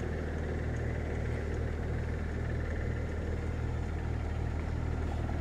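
Car engine idling steadily with a low, even hum.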